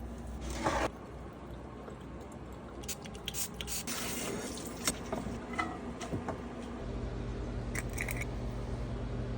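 Kitchen food-preparation sounds: a short rush of noise about half a second in, then scattered light clicks and taps, with a steady low hum setting in about seven seconds in.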